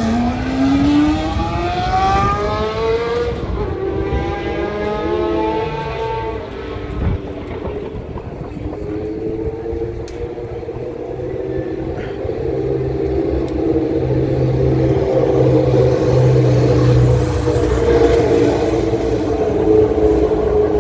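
Historic Formula One car engines at high revs: one accelerates hard with its pitch climbing steeply over the first few seconds, then engines hold a steady high note, louder in the second half.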